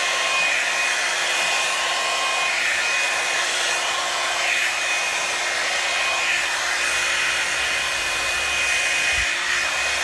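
Revlon Salon hair dryer and styler, a hot-air paddle brush, running steadily while it is drawn through hair: an even rush of blown air with a thin, steady high whine from its motor.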